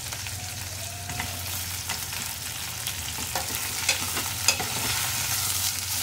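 Chopped vegetables sizzling in a hot ghee and oil tempering in an aluminium pressure cooker. A steel ladle stirring them scrapes and clicks against the pot several times.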